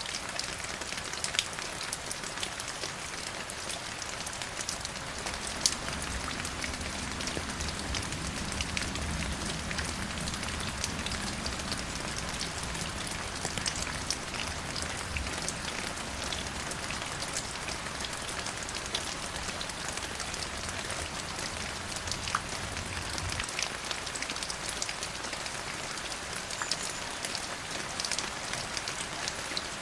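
Steady rain falling, with many separate drops tapping sharply through the hiss. A low rumble runs underneath from about six seconds in until about twenty-three seconds.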